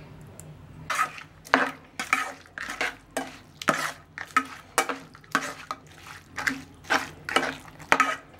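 Stainless steel slotted spatula stirring thick curd into soaked poha in a nonstick kadai, scraping and knocking against the pan about twice a second. The strokes start about a second in.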